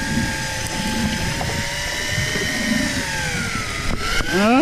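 Tanacom 1000 electric deep-drop reel motor whining steadily as it winds in a heavy fish from deep water. Its pitch sags slightly in the second half as the load pulls on it.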